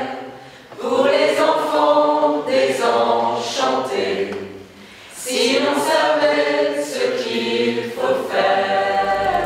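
A group of women and men singing together unaccompanied, in three sung phrases with short breaks between them.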